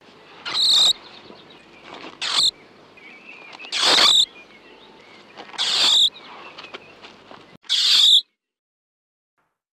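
European mole squeaking: five short, shrill squeaks spaced a second or two apart, over a faint hiss.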